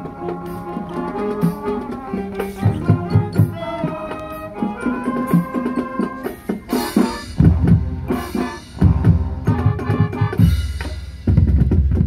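High school marching band playing: brass holding notes over drums, with heavy bass drum and snare hits from about halfway through.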